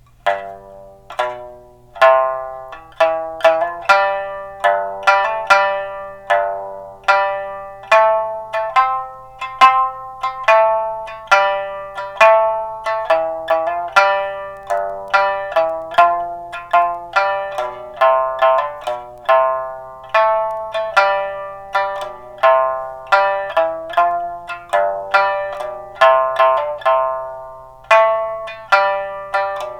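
A plucked-string instrument playing a melody note by note, each note struck sharply and fading, as the instrumental introduction before the singing of a song.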